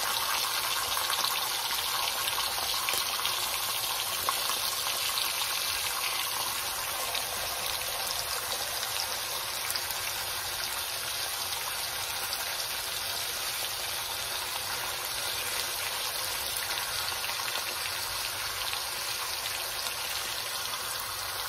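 Thin beef steak slices sizzling as they are laid into a hot pan of browning sugar: a steady hiss, a little louder at first and easing slowly.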